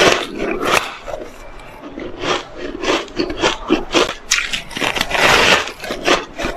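Fluffy, dry, snow-like ice being bitten and chewed: a run of crisp crunches at an uneven pace, with a longer, louder crunching bite about five seconds in.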